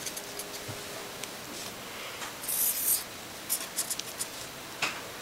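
Felt-tip marker drawing on paper in short scratchy strokes, the longest about halfway through.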